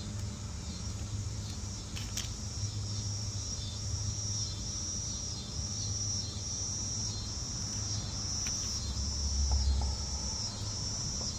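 Crickets chirping in a high, even pulsing trill, about two pulses a second, over a low background rumble.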